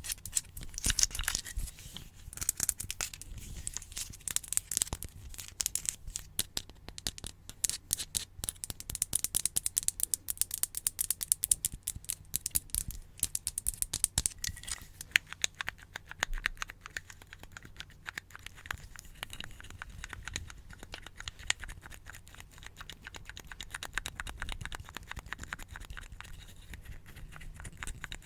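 Close-miked ASMR trigger sounds: rapid scratching and crinkling, a dense stream of small crackles. Busier and louder in the first half, fainter after about midway.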